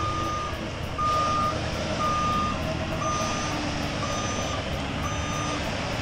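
Concrete mixer truck backing up: its reversing alarm beeps steadily about once a second over the steady rumble of its diesel engine.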